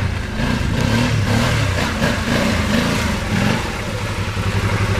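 Arctic Cat ThunderCat 1000's engine revved in several short blips, then settling to a steady idle about three and a half seconds in.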